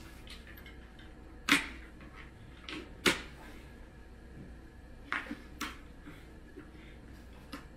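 Hard plastic clicks and knocks from a Dyson V7 cordless vacuum's cyclone and canister unit being handled, with its bin-emptying release pushed and worked. There are several sharp clicks, the loudest two in the first half and a pair shortly after.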